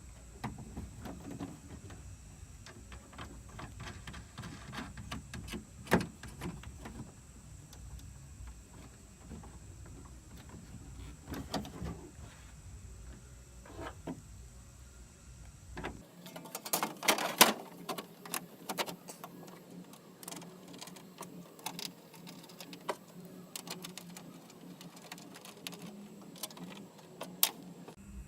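Irregular small clicks, taps and knocks of hand work on a truck tailgate, as latch parts, nuts and the faceplate are handled and fitted back in place. One sharp click comes about six seconds in, and a quick cluster of clicks comes a little past halfway.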